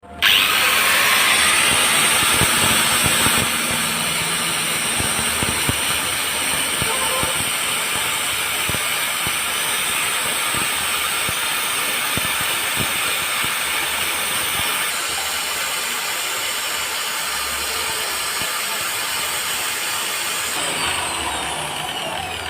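A steady, loud hiss that starts suddenly, eases a little after a few seconds, and carries scattered clicks and knocks.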